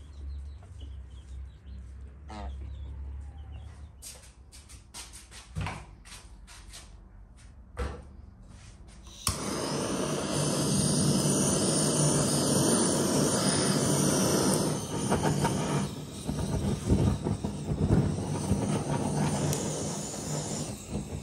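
A handheld gas blowtorch starts about nine seconds in, with a sudden onset, and then hisses loudly and steadily as its flame singes the skin of a plucked bird. Before it there are only faint scattered clicks and knocks.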